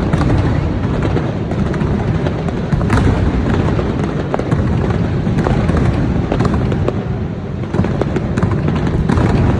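Fireworks display going off without a break: a steady low rumble of bursts overlaid with many sharp crackles.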